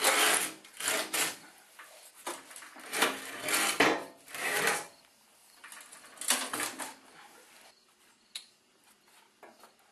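Two-stage snowblower being moved off wooden blocks onto the lift's deck: a run of loud knocks, scrapes and clunks of wood and metal in the first five seconds, then a few lighter knocks.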